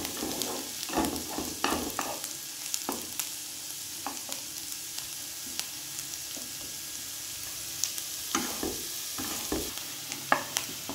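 Chopped onion, garlic, ginger and green chilli sizzling in hot mustard oil in a non-stick pan as they fry to golden. A spatula scrapes and taps against the pan now and then, more often in the first second and again near the end.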